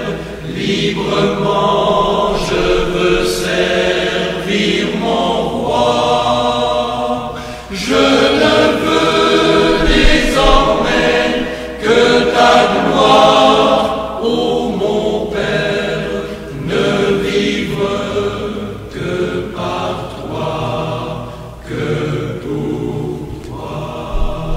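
A choir singing a sacred song, in phrases with short breaks between them.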